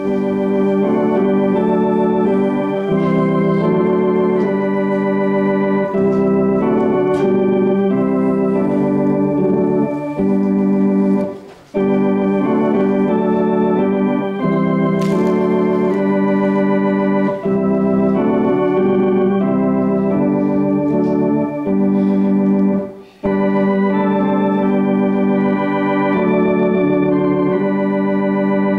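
Organ playing slow offertory music in sustained chords, with two short breaks between phrases.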